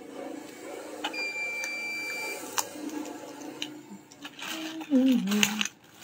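A steady, high electronic beep tone held for about a second, a few sharp clicks, then a woman's voice near the end.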